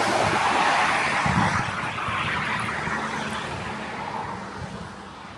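A passing vehicle's rushing noise, loudest at the start and fading steadily as it moves away, with low irregular rumbles from wind on the microphone.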